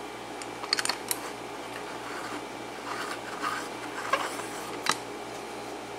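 A few light clicks and rubbing as a small brass lock cylinder is handled and fitted into a bench vise, over a steady low hum.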